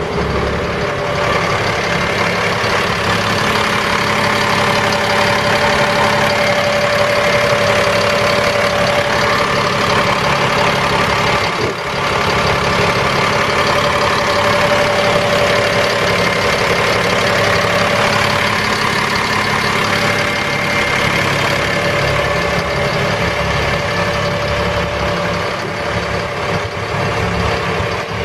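Caterpillar 3126B six-cylinder turbo diesel of a Sterling LT7501 dump truck idling steadily, heard close up at the open engine bay. The seller lists the engine as running rough.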